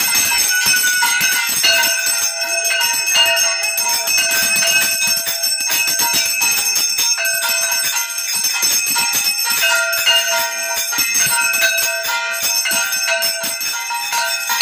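Hand-held puja bell rung rapidly and without a break, its ringing tones held over quick, continuous clapper strikes.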